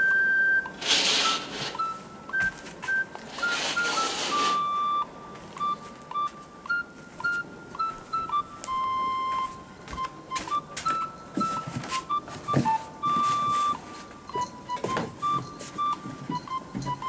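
Light background music: a simple melody of single stepping notes. Two short bursts of noise come in the first few seconds, and a few light knocks later on.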